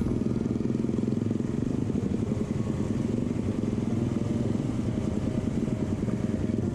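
Honda RS150R's single-cylinder four-stroke engine running steadily under way, a fast, even firing beat with no revving.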